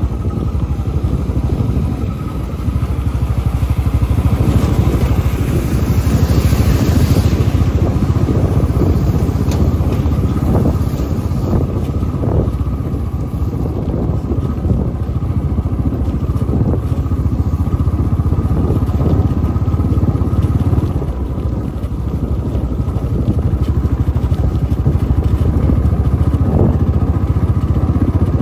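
Motorcycle running steadily at riding speed, heard from on the bike, with a constant low rumble of engine and road noise and a few faint knocks as it crosses a rough, potholed gravel road.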